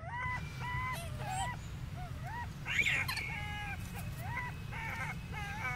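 A quick series of short pitched animal calls, many bending up and then down, with a louder, harsher call near the middle, over a steady low hum.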